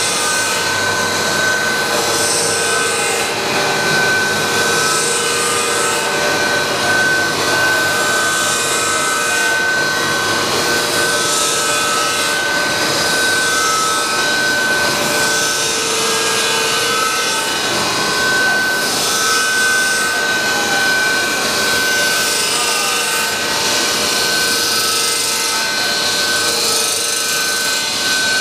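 PVC sheet extrusion line running: steady machinery noise with a constant high-pitched whine.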